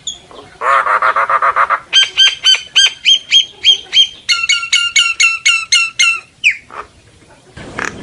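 Common myna singing its flock-calling song: a fast gurgling phrase, then a run of clear repeated notes about four a second, then a quicker run of down-slurred notes, breaking off about six and a half seconds in.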